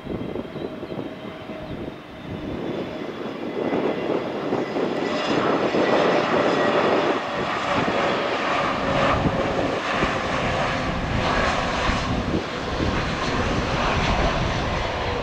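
Twin-engine jet airliner's engines as it comes in to land. The sound grows louder about four seconds in and stays loud, with a faint whine that falls slowly in pitch.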